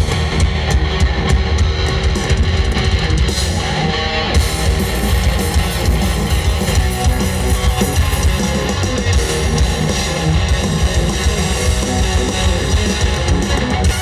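Rock band playing live, loud, with electric guitar over a drum kit.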